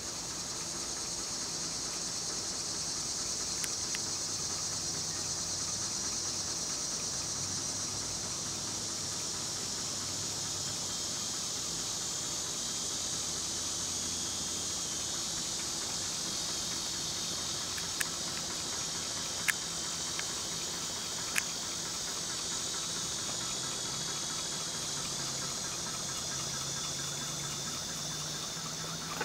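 Antique Jost hot-air Stirling fan running fast and near silently with a faint low hum, under a steady high-pitched chirring that is the loudest sound. A few sharp clicks come about two-thirds of the way through.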